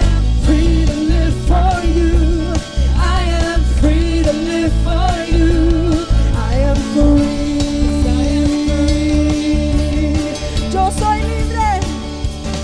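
Live worship band: a woman sings lead over acoustic guitar and a full band, holding one long note midway through.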